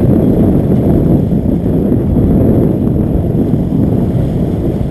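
Loud, steady wind rumble on the microphone over a sportfishing boat's triple outboard engines running in gear, with water churning at the stern.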